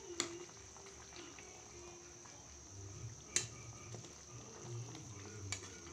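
Fish curry simmering faintly in a kadhai while a spatula stirs it, knocking sharply against the pan twice.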